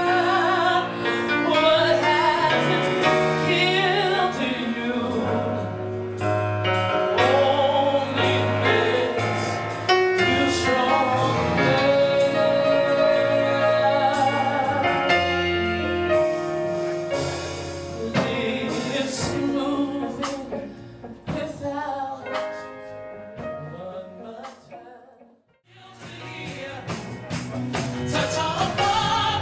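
A song with a singer's voice, held notes wavering, over instrumental backing. About 25 seconds in it fades almost to silence, and then another song begins.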